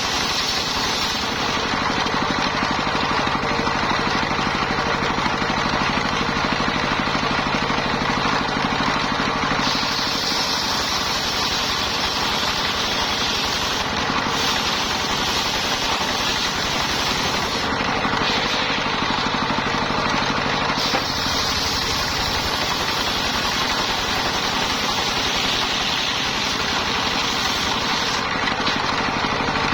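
Engine-driven mobile circular sawmill running steadily. Several times the sound turns brighter and higher for a few seconds while the engine note sinks under it, consistent with the blade cutting through lamtoro logs under load.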